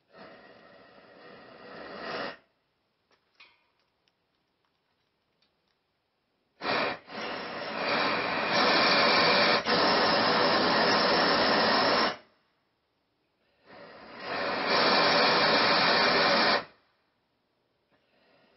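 Homemade tin-can ramjet fed by a single butane nozzle, firing with a loud, even rushing noise in three bursts that each stop abruptly: a short one at the start that swells, a long one of about five seconds from about a third of the way in, and a shorter one about three-quarters through. Between bursts it is near silent apart from a few small clicks.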